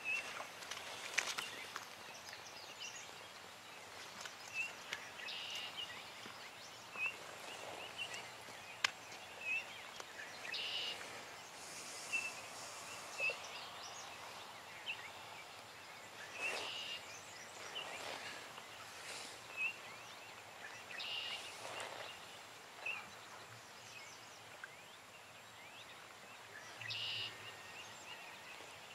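Small birds calling with short repeated chirps, several a second at times, over quiet open-air ambience by the water. A few brief louder splashes and knocks come through, the last one near the end as a landed fish is let go at the water's edge.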